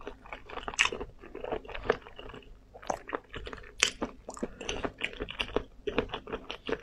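Close-miked mouth sounds of a person biting and chewing a chunk of braised meat in chili oil: wet smacks and crunchy crackles, several a second, in an irregular pattern.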